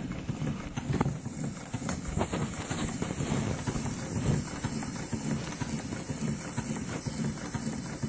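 Scale model of an 1895 reversible steel mill steam engine running steadily under low pressure, a low continuous running noise with a few light clicks.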